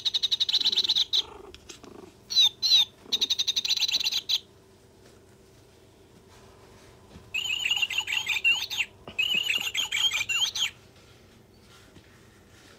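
Plush parrot pet toy's electronic sound chip playing bird chirps and trills in repeated bursts: several short bursts in the first few seconds, then two longer runs of warbling chirps past the middle.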